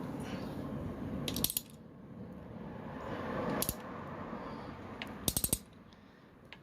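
Metal parts of a disassembled CG 150 motorcycle engine being handled, giving sharp clicks and clinks: a short cluster about a second and a half in, a single click near the middle, and a quick run of clicks a little after five seconds.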